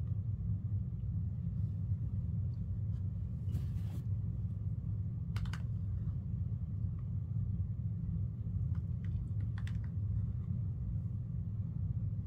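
A steady low hum, with a few soft, scattered clicks and taps of a small plastic feeding spoon against a plastic baby doll's mouth.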